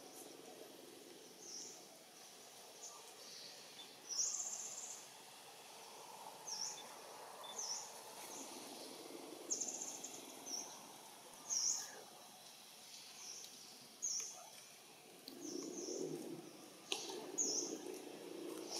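Repeated short, high-pitched animal chirps or squeaks, about a dozen scattered irregularly, over a faint background with a soft lower noise near the end.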